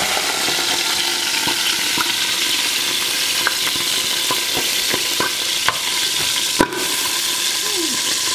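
Whole chicken sizzling in hot oil as it browns in the stainless inner pot of an electric pressure cooker: a steady, loud frying hiss. A few light metal clicks come from a fork against the pot as the bird is turned and lifted out.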